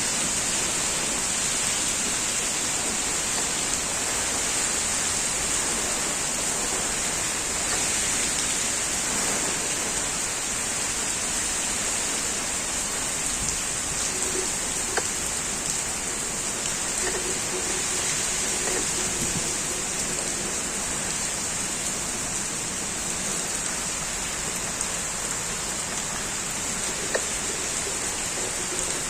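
Heavy rain falling steadily: a dense, even hiss of rain on surfaces, with the odd louder drop tick.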